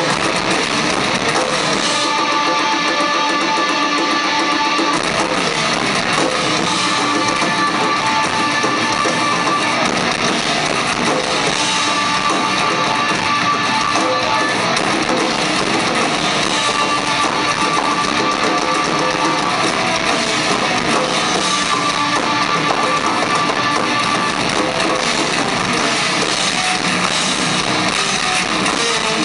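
Live sludge/stoner metal band playing loud, distorted electric guitars in sustained chords with drums underneath, a dense and unbroken wall of sound.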